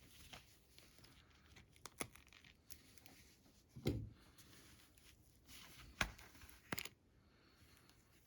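Plastic packaging of a coin set being cut and torn open: faint rustling and crinkling, broken by a few short sharp clicks a second or two apart.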